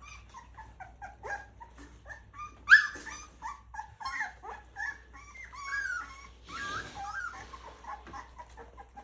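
Several three-week-old Rottweiler puppies whining and squeaking over and over in short, high cries, with one sharp yelp about three seconds in.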